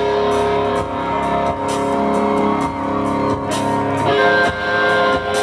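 Live country-rock band playing, with held electric guitar lines over a drum kit and regular cymbal hits.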